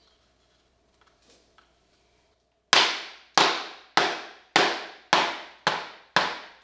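A mallet striking a laminate floor plank seven times in a steady rhythm, about one sharp tap every half second, starting a few seconds in. The taps knock the click-lock plank into place to close its joint.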